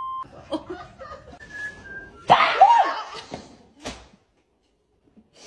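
A censor bleep, one steady beep tone, cuts off just after the start. About two seconds in comes a loud burst of noise with a brief rising-and-falling cry, then a sharp click, then a second of silence.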